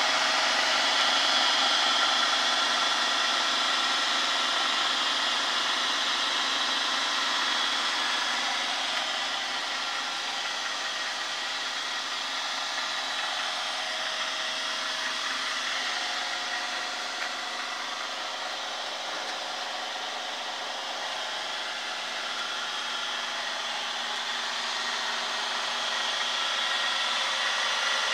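Home-built bending and rolling machine running: a three-phase induction motor driving a WPA80 worm-gear reducer through V-belts. It makes a steady mechanical hum with several steady tones mixed into it, slightly softer in the middle.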